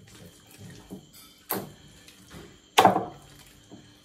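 Soft, sticky fufu dough being scooped and shaped into balls by hand in a bowl: wet squelches and slaps, the sharpest about a second and a half in and the loudest near three seconds in.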